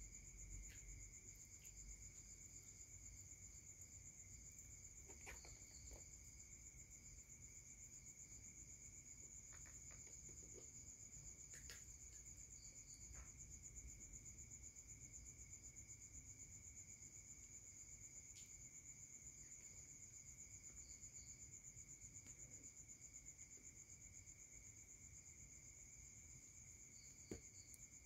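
Near silence, with a steady high-pitched insect trill in the background and a few faint taps.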